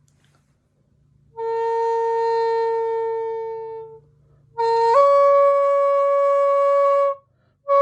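Bamboo flute playing slow, long held notes: one note held about two and a half seconds and fading at its end, then, after a short gap, a slightly higher note that steps up just after it starts and is held about two seconds.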